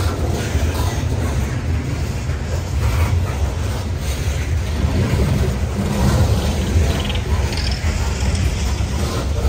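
CSX coal train's steel coal cars rolling past: a steady low rumble of wheels on the rails, with a few faint clicks.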